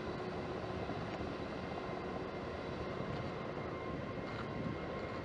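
Jet airliner engines running steadily: a dense rush of noise with thin, steady whining tones above it.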